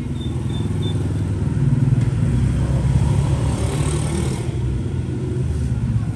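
Street traffic of passing motorbikes: a steady engine rumble that swells about two seconds in.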